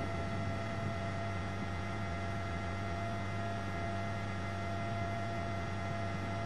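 Steady, unchanging hum with several fixed whining tones over a hiss-like noise bed.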